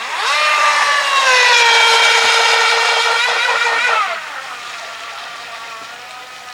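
Brushless outrunner motor of an electric RC catamaran whining under throttle. The pitch climbs quickly at first, holds steady at high speed for about three seconds, then drops at about four seconds into a quieter, lower whine as the throttle is eased.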